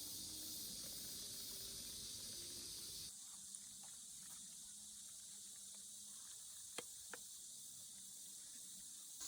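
Steady high-pitched outdoor hiss of background ambience, shifting to a slightly quieter one about three seconds in, with a couple of faint clicks near the end.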